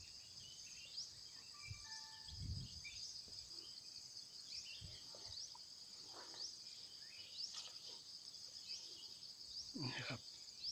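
Steady high-pitched chorus of insects, with short rising chirps recurring every second or two. A low rumble comes about two and a half seconds in.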